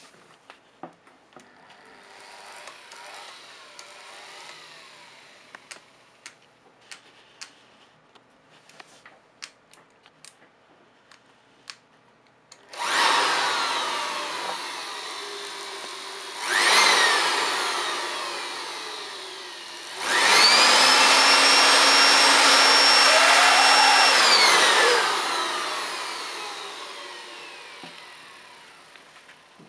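600 W electric blower with a hose on its outlet, its motor and air rush switching on suddenly about halfway through and fading, then a second short burst, then a steady run of about four seconds with a high motor whine before it is switched off and spins down slowly. Light clicks and handling before it starts.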